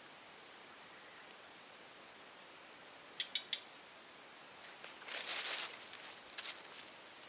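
Steady, high-pitched chirring of insects such as crickets. A few faint ticks sound a little after three seconds, and a short rustle about five seconds in.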